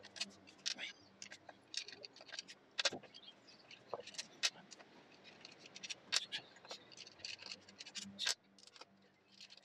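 Irregular metallic clicks and clinks as the crankcase bolts of a Yamaha TZR 125 engine are undone with a screwdriver and the steel bolts are pulled from the aluminium cases and handled.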